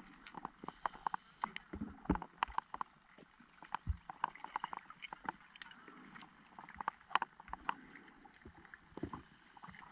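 Underwater reef ambience picked up through a diver's camera: irregular clicks and crackles throughout, with two short high hissing sounds, one about a second in and one near the end.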